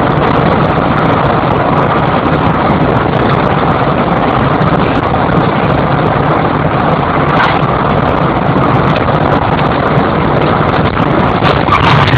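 Steady road and engine noise inside a car's cabin as it cruises at highway speed, growing somewhat louder near the end.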